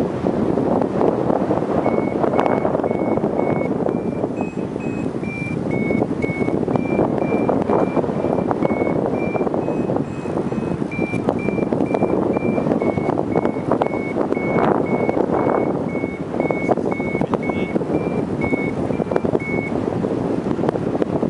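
Paragliding variometer beeping: a run of short high beeps, about two a second, whose pitch steps up and down a little. This is the climb tone that signals the glider is rising in lift. Under it is a steady rush of wind over the microphone, the loudest sound throughout.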